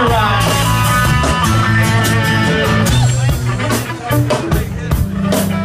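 Live rock band playing through a PA: amplified guitars over bass, with drum hits coming in toward the end.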